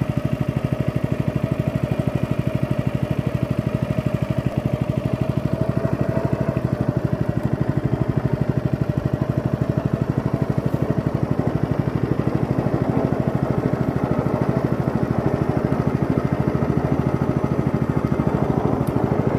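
Small engine of a narrow wooden motorboat running steadily under way, a fast, even chugging that holds the same speed throughout.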